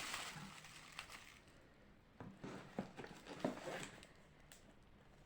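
Faint handling noises of products and packaging: a soft rustle at first, then scattered light clicks and taps. A faint low hum sits underneath.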